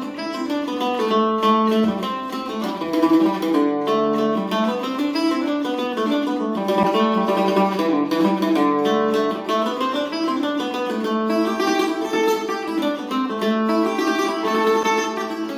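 Weber Black Ice octave mandolin played solo, an Irish reel picked as a continuous run of quick notes.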